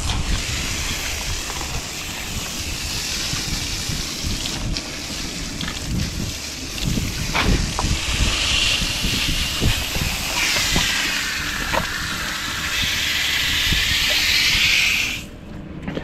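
Garden hose spray nozzle jetting water against the dirty outdoor coil and cabinet of a heat pump: a steady hiss and splatter whose tone shifts as the stream moves over the coil. The spray cuts off shortly before the end.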